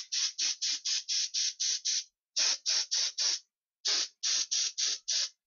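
Games Workshop spray gun hissing out black surface primer in quick short bursts, about four a second, in three runs with brief pauses between them.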